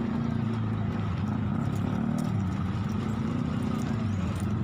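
A motor vehicle engine running steadily at a low pitch.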